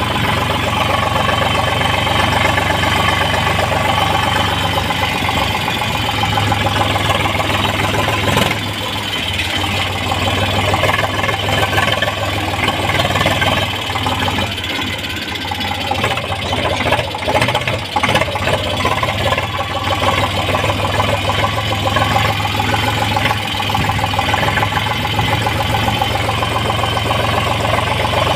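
Eicher tractor's diesel engine running steadily, with a slight dip in loudness about a third of the way in and again near the middle.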